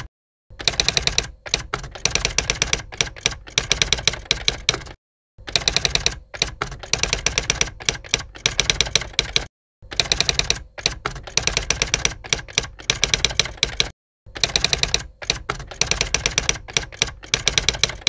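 Typewriter keys striking in rapid runs, in four bursts of about four seconds each with short clean breaks between them.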